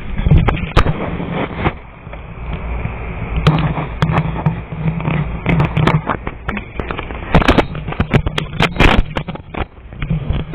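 Tarot cards being shuffled and handled: bunches of quick crackling clicks, densest about half a second in, around four seconds, and again from about seven and a half to nine seconds.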